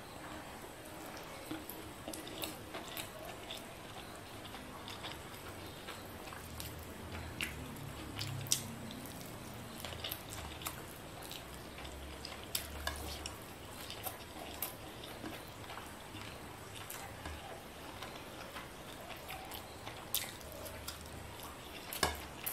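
Fingers mixing white rice with fried fish and greens on a plate: soft, wet squishing with many small, irregular sticky clicks.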